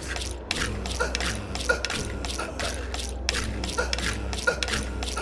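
Rapid, irregular mechanical clicking and ratcheting with short creaks, over a steady low hum: a sound-design bed closing the audio drama.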